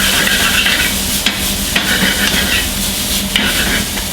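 Diced chicken, bacon and garlic sizzling in hot oil in a frying pan as they are stirred, with a steady hiss and a few sharp knocks of the utensil against the pan.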